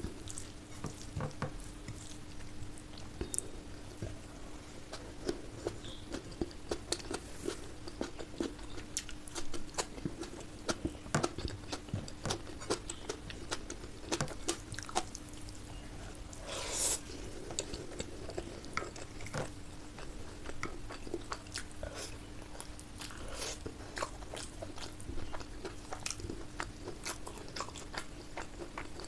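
Close-miked eating: a person chewing and biting mouthfuls of curry and rice, with many small wet clicks and crunches and a longer noisy mouth sound about halfway through. A steady low hum runs underneath.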